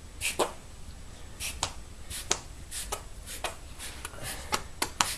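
A small child's hands slapping and smacking together in about a dozen light, irregular clicks. No air-blown farting sound comes out: her hands aren't cupped enough to trap the air.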